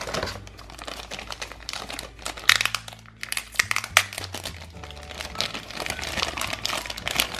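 Thin clear plastic bag crinkling and crackling in a run of irregular crackles as hands handle the plastic toy candy molds packed inside it.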